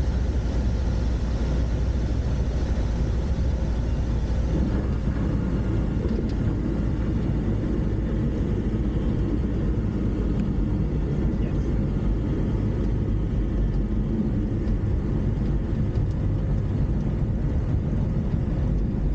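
Van's RV-12 light-sport airplane's Rotax 912 engine and propeller running steadily at low power, heard inside the cockpit as the plane rolls along the runway after landing.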